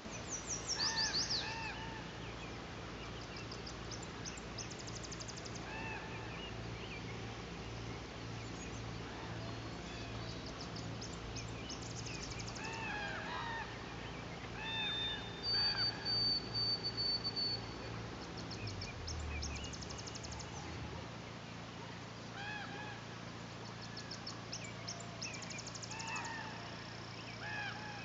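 Birds calling in the early-morning boreal forest: repeated arched, honking calls, matching common ravens, mixed with rapid high songbird trills and one long high whistle partway through. A steady low hum runs underneath.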